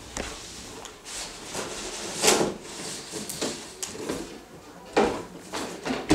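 Cardboard product box being opened: the inner box slides out of its outer sleeve with a run of rubbing, scraping sounds, the loudest about two seconds in and another about five seconds in.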